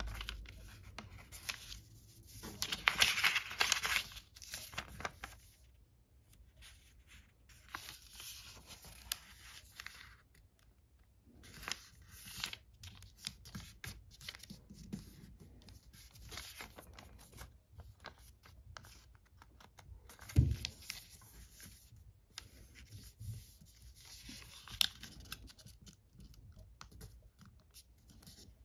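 Sheet of origami paper being folded and creased by hand: irregular rustling and crinkling as the paper is turned and the folds are pressed flat, loudest about three seconds in. One short knock about two-thirds of the way through.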